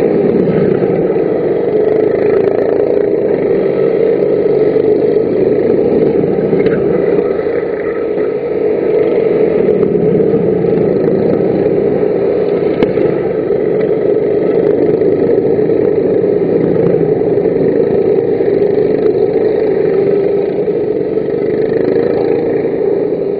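Engines of several F-400 racing karts running at race speed around the circuit: a steady, loud drone that swells and eases slightly as the karts pass.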